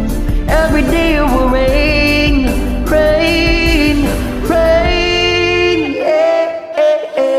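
Pop ballad karaoke backing track with a voice holding long, bending sung notes without clear words. The bass drops out about six seconds in.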